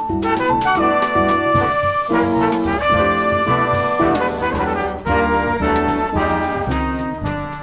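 Jazz orchestra music with a brass section of trumpets and trombones playing held chords and lines.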